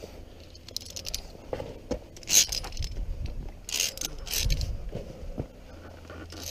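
Via ferrata carabiners clinking and scraping against the steel safety cable as a climber moves up, in a few irregular bursts with the loudest a little over two seconds in, along with low scuffs and knocks of the climber on rock.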